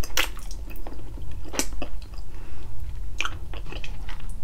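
A person chewing a mouthful of balbacua, a pork-feet stew, close to the microphone, with a few short, sharp mouth clicks at uneven intervals.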